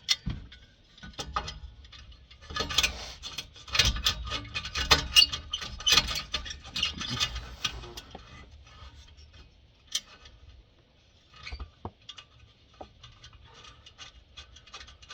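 Hand work on car exhaust fittings: scattered metal clicks, clinks and rubbing, busiest for several seconds in the middle, then only a few isolated clicks.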